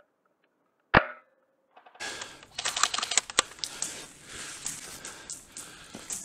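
A single sharp shot from a spring airsoft sniper rifle about a second in. After a short silence comes a clatter of rapid clicks and rustling.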